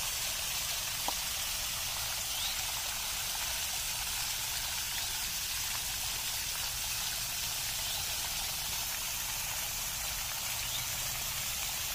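Water splashing steadily as it falls in several thin streams over a rock ledge into a shallow pool of a stone water feature: a small man-made waterfall.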